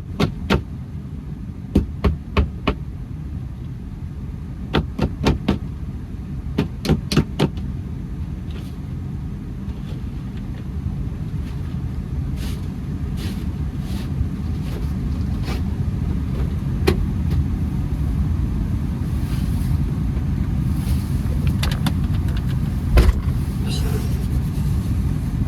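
Honda Accord running with a steady low rumble, overlaid by several quick clusters of sharp clicks in the first eight seconds, scattered fainter ticks after that and one louder knock near the end.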